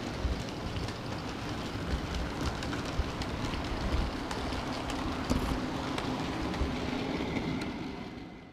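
Model railway train carrying an on-board camera, rolling along the track: a steady rumbling rattle of wheels on the rails, with many irregular small clicks and knocks. The sound fades out near the end.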